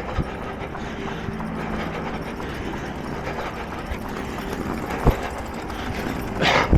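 A runner's footfalls over a steady background hum, then one hard, forceful cough right at the end.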